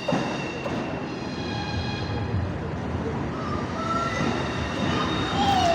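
ES2G electric multiple unit pulling into a station and slowing, its wheels and brakes squealing in several high thin tones over a steady rumble. Near the end a lower tone falls in pitch.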